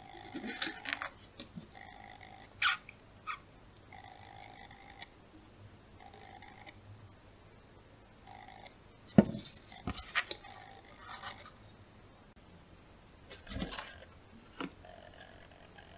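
Quiet handling of paper plates and a plastic squeeze bottle of white glue on a table: light clicks and knocks as plates are set down and picked up, with one sharp knock about nine seconds in. A faint steady tone comes and goes several times underneath.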